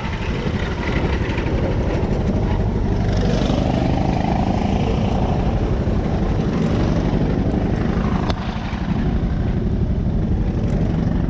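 Rental go-kart engines running close by, a steady rough low drone, dipping briefly a little past eight seconds in.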